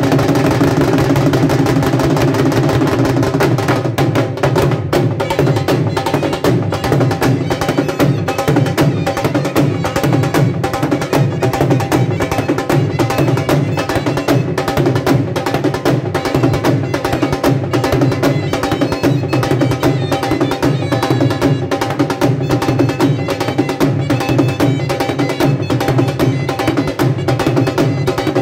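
Two dhol drums played together with sticks in a fast, continuous beat.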